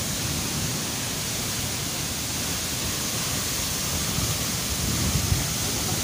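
Tall waterfall in heavy flow: a steady, even rush of falling water crashing into its plunge pool.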